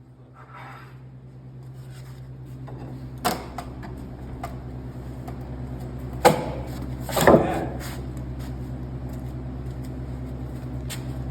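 A steady machine hum that grows slowly louder, with a few sharp knocks; the loudest knocks come about six and seven seconds in.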